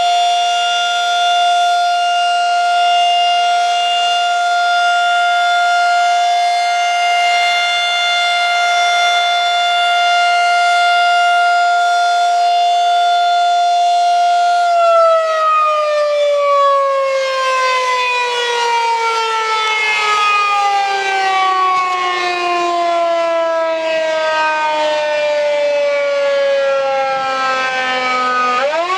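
Federal Signal 2001-130 outdoor warning siren sounding a loud, steady tone for about fifteen seconds, then winding down in a long falling wail. Right at the end it starts to wind back up.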